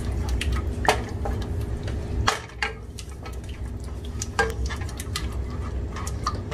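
Wooden spoon stirring and scraping melting butter in an aluminium pot, with irregular clicks and a few sharper knocks of the spoon against the pot, the first of a béchamel roux.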